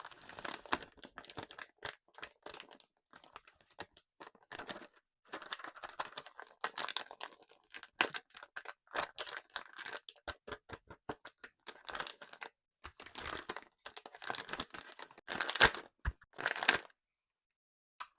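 Candy and its wrappers crinkling and crackling close up, in irregular bursts of rustle and sharp cracks that stop about a second and a half before the end.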